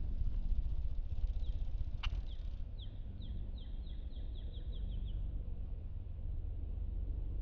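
A small bird calling a run of about a dozen short, quick downslurred chirps that come a little faster toward the end, over a low steady rumble. There is one sharp tick about two seconds in.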